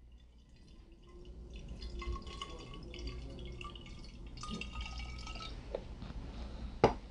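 Rubbing alcohol pouring from a plastic bottle into a glass bottle, a trickling, gurgling fill with a thin tone that rises slightly as it goes. A sharp knock sounds near the end.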